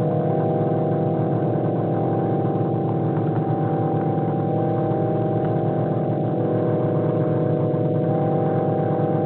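Dense electronic drone from an ANS synthesizer app: many steady held tones stacked together, with a few tones dropping out or changing about a third and two thirds of the way through.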